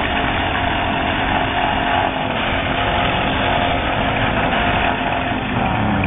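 Demolition derby cars' engines running together, a dense, steady engine noise.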